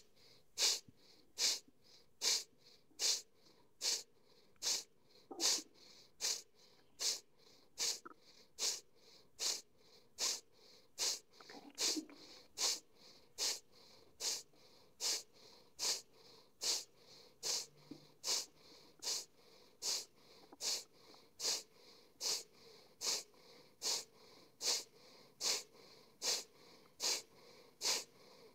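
Breath of fire: short, forceful exhales through the nose at an even rhythm, a little more than one sharp puff a second, with the belly drawing in on each exhale and relaxing on the inhale.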